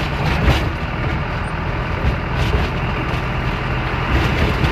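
Truck engine and road noise heard from inside the cab while driving, a steady rumble with a few brief knocks and rattles as the truck rolls over a rough road.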